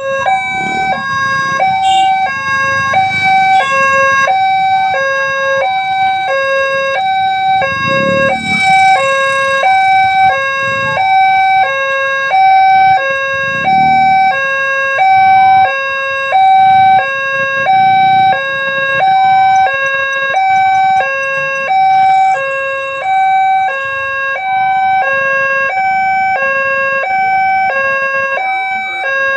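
Railway level-crossing warning siren sounding a steady hi-lo alarm, switching between a higher and a lower tone about every two-thirds of a second, as the crossing gates are being closed for a train.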